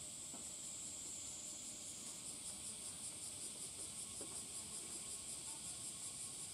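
High-pitched insect chorus: a steady shrill buzz that begins pulsing rhythmically, a few times a second, about two seconds in.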